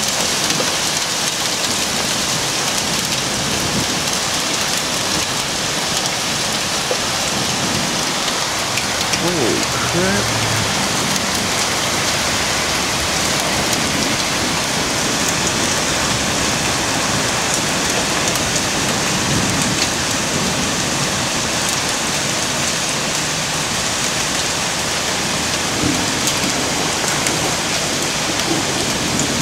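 Hail falling hard on parked cars and pavement: a dense, steady patter of many small hits.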